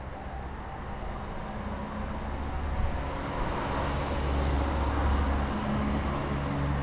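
A car coming along the street, its engine and tyre noise growing steadily louder.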